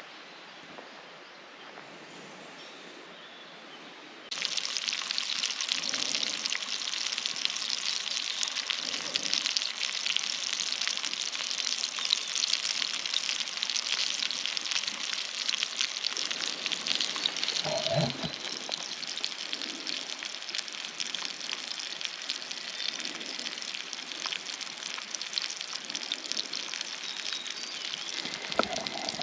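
Food sizzling and crackling as it fries in a pan, starting suddenly about four seconds in, after quiet outdoor ambience.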